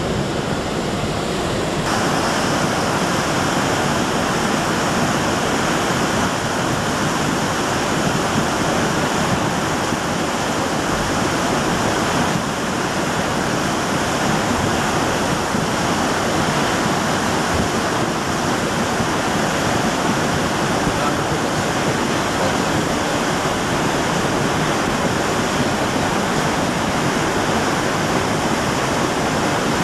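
Floodwater of the swollen Ruidoso River rushing under and against a bridge, a steady, loud churning of water that grows louder about two seconds in.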